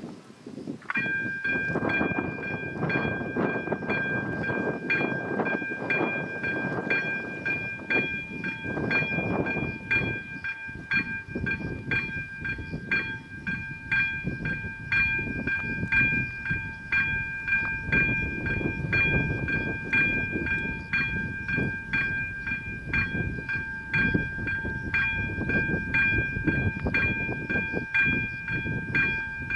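Level-crossing electronic warning bell starting up about a second in, then ringing with a regular, repeated strike as the crossing activates for an approaching train.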